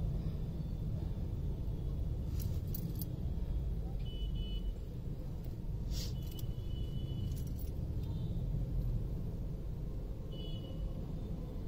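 Steady low rumble of passenger train coaches rolling slowly past a level crossing, mixed with idling motorcycles in the waiting traffic. It is broken by several sharp metallic clicks and three brief, high ringing tones.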